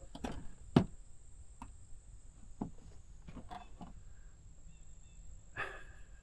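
Footsteps on a wooden boardwalk: a few scattered, uneven thuds on the planks, over a faint steady high-pitched tone and quiet outdoor background.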